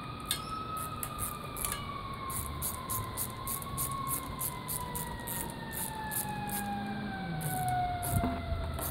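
A siren wailing, its pitch rising slightly at first and then falling slowly and steadily over several seconds.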